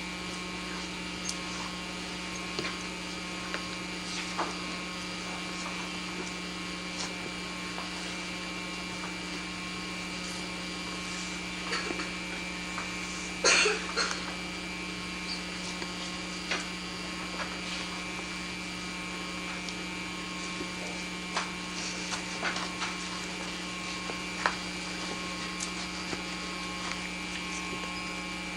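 Steady electrical hum, a mains-type buzz of several held tones, on an old camcorder videotape soundtrack, with scattered small clicks and one louder knock about thirteen seconds in.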